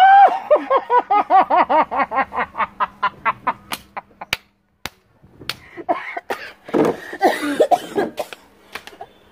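A woman laughing hard behind a tissue held to her mouth: a rising squeal, then a rapid run of short laughs, about six a second, fading out. More laughter and a few sharp clicks follow in the second half.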